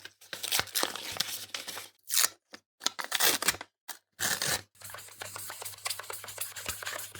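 Packaging of wooden keyboard wrist rests being torn open and handled: bursts of tearing, scraping and crinkling, then a quieter run of small ticks and rustles from about five seconds in.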